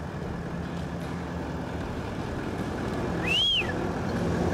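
Toyota LandCruiser 79 series ute's engine running as the ute rolls slowly, growing gradually louder as it comes closer. A short high chirp that rises and falls comes about three and a half seconds in.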